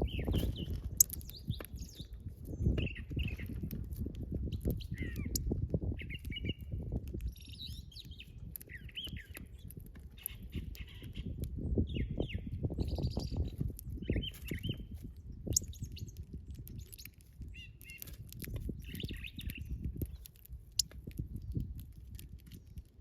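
Backyard songbirds chirping, short chirps coming every second or so, over a low rumble.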